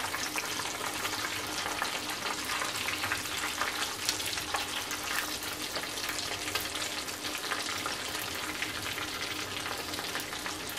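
Breaded chicken wings sizzling and crackling steadily in hot oil in a wok, with tongs now and then knocking against the pan as they turn the pieces.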